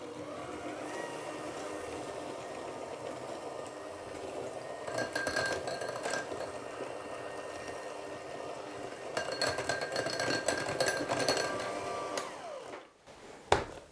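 Electric hand mixer running steadily, its wire beaters whirring through butter, sugar and egg in a glass bowl; the sound grows louder and rattles twice, then the motor switches off near the end.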